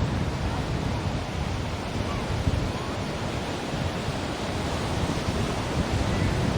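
Ocean surf washing steadily, an unbroken rush of breaking waves.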